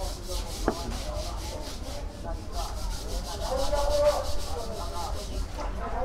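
Quick, rhythmic rubbing and scraping strokes of hands and tools working fresh gaebul (spoon worms) during cleaning, with a single sharp knock under a second in.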